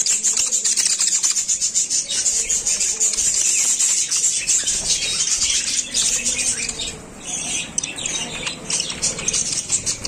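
A flock of caged budgerigars chattering and chirping continuously in quick, high chirps and squawks, with a short lull about seven seconds in.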